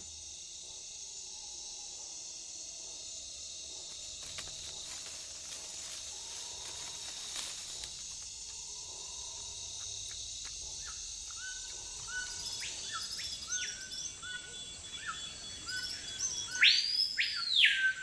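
Rainforest insects trill steadily in a high, even chorus. In the second half a bird joins in with a series of short whistled notes, ending in louder arching whistles near the end.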